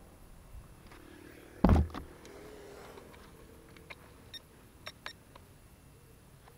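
A single loud thump with some rumbling handling noise about two seconds in, followed by a few faint clicks: the Syma X8 quadcopter's on-board camera being handled or set down, its motors not running.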